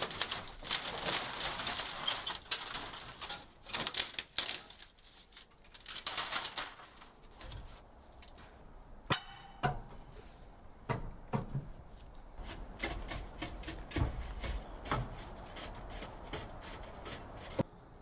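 Old, sun-aged corrugated polycarbonate roofing sheets crackling and snapping as they are torn off by hand for the first several seconds. Then scattered knocks and clicks of a pry bar working at the wooden roof frame, with one sharp, ringing metal knock about nine seconds in.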